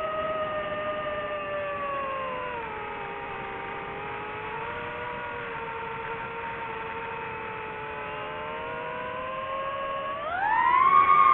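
DJI FPV drone's motors and propellers whining steadily. The pitch sinks a little about two and a half seconds in, holds, then rises sharply near the end as the motors spin up.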